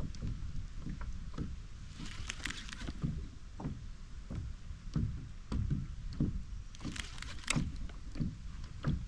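Water lapping and slapping against a pedal fishing kayak's hull, in uneven knocks about two a second, with a few sharper clicks among them.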